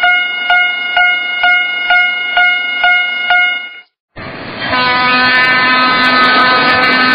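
Railroad crossing bell ringing about twice a second, each ding ringing on briefly, until it stops about four seconds in. After a brief gap a train is heard running steadily, with a constant hum and whine over the rumble.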